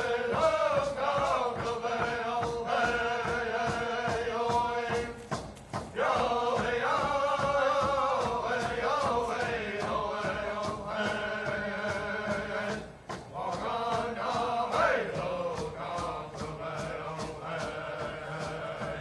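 Closing-credits song: chanting, choir-like male voices singing over a steady drum beat.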